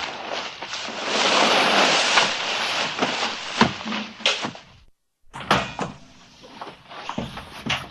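Sound-effect bodyfalls: a person's body hitting the ground with clothing rustle and scuffling, several thuds in a row, with a brief dead silence about five seconds in where one effect ends and the next begins.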